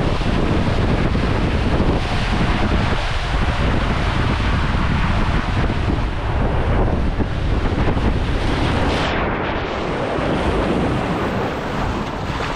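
Water rushing and splashing down a water slide, with wind buffeting the rider's camera microphone. The sound is loud and steady and goes briefly dull about nine seconds in.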